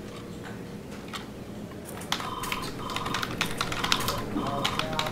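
Fast typing on a computer keyboard: a quick clatter of keystrokes that starts about two seconds in, over a faint steady hum.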